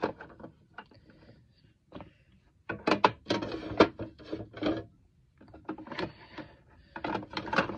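Cosmetics being set into a clear plastic makeup organizer: a few light taps, then two runs of small clicks and knocks of plastic against plastic.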